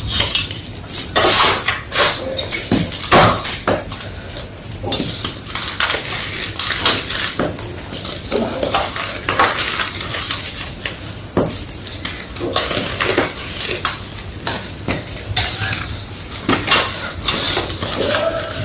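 Circle-shaped pieces of gym chalk being crunched and crushed: a steady run of irregular crisp crunches and snaps, several a second.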